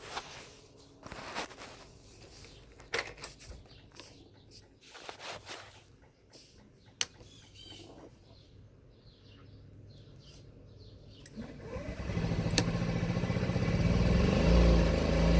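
Scattered clicks and knocks for about eleven seconds. Then a Honda Ruckus 49cc scooter's engine starts with a rising sweep and keeps running, getting louder toward the end. It is a hard start, helped along with starting fluid, which the owner thinks may mean the pump is going out.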